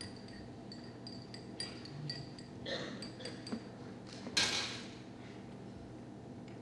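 Porcelain cup and saucer clinking lightly, a series of small ringing taps over the first few seconds. A little over four seconds in there is one brief, louder rush of noise.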